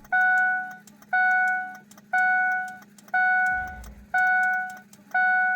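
Warning chime from a 2003 Ford 6.0 diesel truck sounding six times, one even tone a second, over a steady low electrical hum. The owner calls these weird electrical noises while the truck cranks but will not start.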